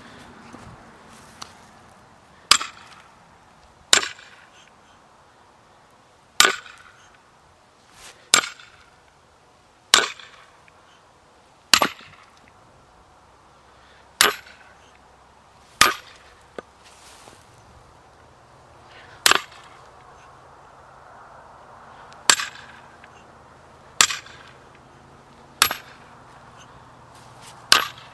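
Steel splitting wedge being struck with a hammer to drive it into the end grain of a maple round and split it along a marked line. About a dozen sharp single strikes, one every couple of seconds.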